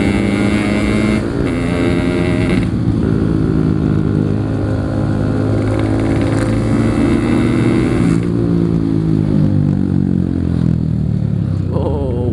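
Single-cylinder two-stroke Yamaha RX-King motorcycle engine running under way, heard from the bike. The revs ease down through the middle and climb again near the end.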